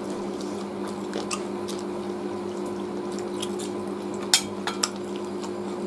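Eating by hand: soft wet squishing and small clicks of fingers working roast chicken and rice, with chewing, over a steady low hum. A steel spoon clicks twice against the steel gravy bowl near the end.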